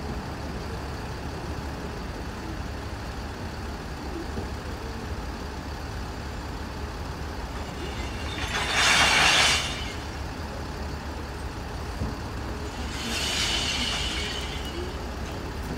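Scania bin lorry idling with a steady low rumble, and two hissing bursts during the glass collection: a loud one lasting about a second, starting about eight and a half seconds in, and a weaker, longer one about thirteen seconds in.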